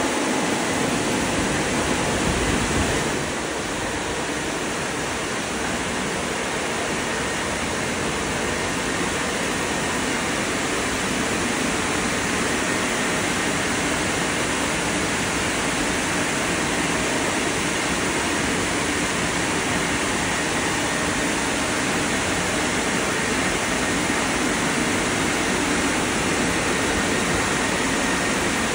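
WashTec gantry car wash drying blowers running, a steady loud rush of air that dips slightly about three seconds in.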